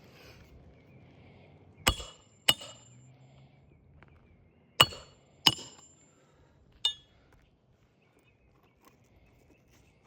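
Hammer driving roofing nails into an asphalt shingle: five sharp strikes with a metallic ring, in two pairs and then a lighter single tap.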